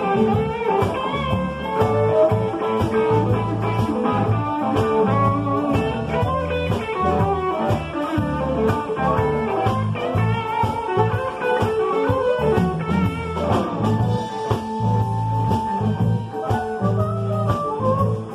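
Live blues band playing: electric guitars with bent lead notes over a drum kit keeping a steady beat.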